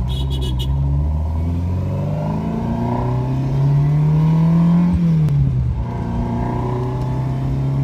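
Ferrari engine heard from inside the cabin, pulling through a gear with its pitch rising steadily, then dropping sharply about five seconds in at a gear change and settling to a steady run. A few light clicks come in the first half second.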